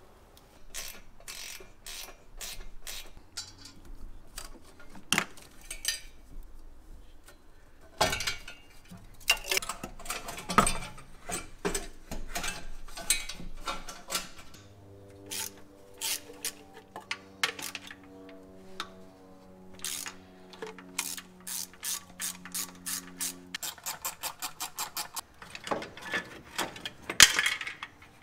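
Socket ratchet clicking in bursts of quick strokes, with metallic clinks of tools, as bolts are undone to pull the truck's exhaust headers and motor mounts. A fast run of ratchet clicks comes near the end.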